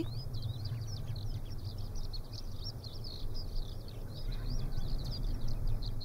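Many small birds chirping over a steady low hum: a wind turbine heard from about 1 km away on a calm day.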